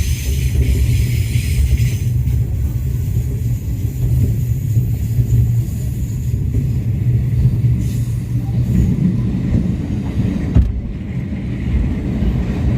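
Diesel-hauled passenger train running on the track, a steady low rumble. A high hiss fades about two seconds in, and there is a brief knock near the end.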